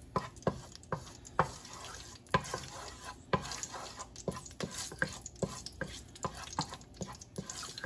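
Wooden spoon stirring a little cooking oil heating in a metal pot, knocking and scraping against the pot's bottom and sides about once a second in an irregular rhythm.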